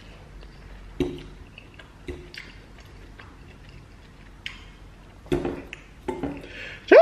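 Metal fork clicking and scraping against a ceramic bowl while a man chews a mouthful of macaroni, with a few short hums among the clicks.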